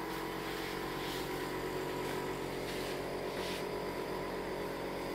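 Steady machine hum with a few short soft hisses, about one, three and three and a half seconds in.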